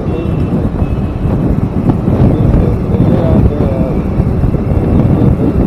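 Wind noise on the microphone of a small motorcycle riding through city traffic, with the bike's engine and road noise underneath.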